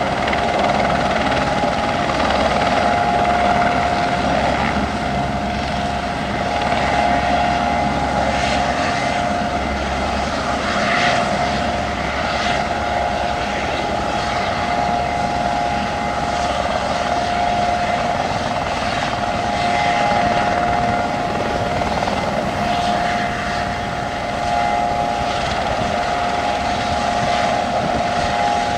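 Aerospatiale AS355F2 Ecureuil 2 twin-engine helicopter running: a steady turbine whine from its two Allison 250 turboshafts over the low beat of the main rotor.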